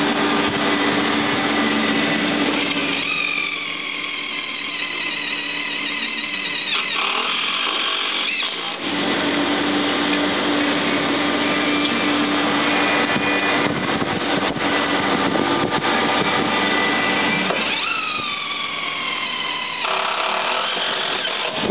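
Cordless drill with a socket driving skid-plate bolts in two runs, its motor whine falling in pitch as each run goes on, over a steady background hum.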